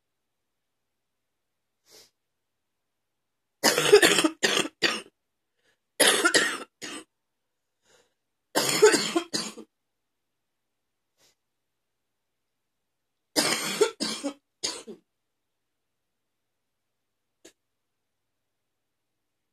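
A woman's wet cough, coming in four bouts of several quick coughs each, with pauses of a second or more between bouts.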